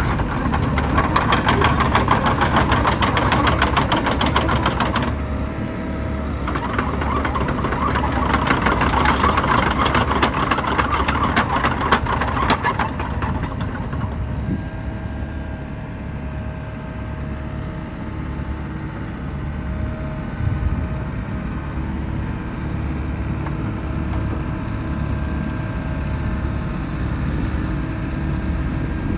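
Volvo EC55D midi-excavator's diesel engine running: louder and busier for the first dozen seconds or so, with a brief drop about five seconds in, then settling to a steadier, quieter run.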